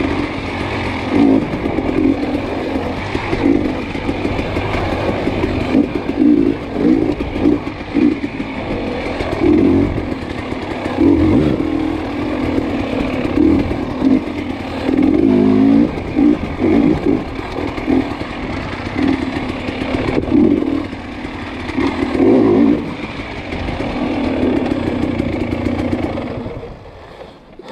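Dirt bike engine revving up and down in repeated short bursts of throttle, with knocks and clatter from the bike over rough ground. The engine drops back and goes quieter near the end.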